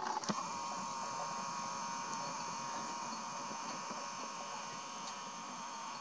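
A steady, high buzzing whine made of several fixed tones, starting and stopping with a click.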